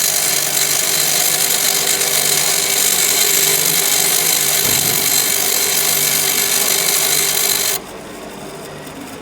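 A drill bit held against a spinning pedestal grinder wheel, giving a steady loud grinding hiss that cuts off abruptly near the end, leaving a much quieter steady running sound.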